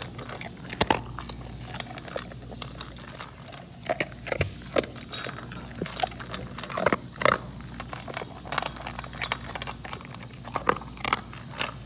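A dog eating dry kibble from a stainless steel bowl: irregular crunches of chewing mixed with clicks of kibble and teeth against the metal.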